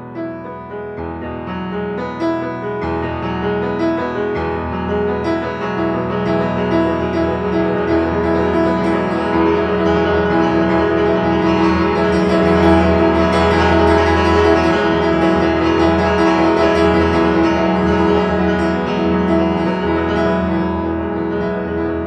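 Solo piano playing a dense, flowing pattern of sustained, overlapping notes, growing louder over the first twelve seconds or so and then holding steady.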